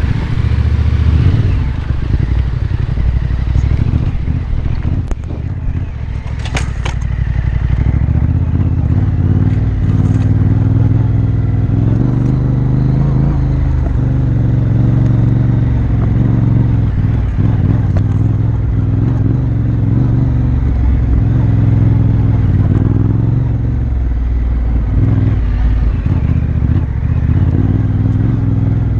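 Yamaha Ténéré 700's parallel-twin engine running steadily as the motorcycle rides over a rocky dirt trail, with a couple of sharp knocks about five to seven seconds in.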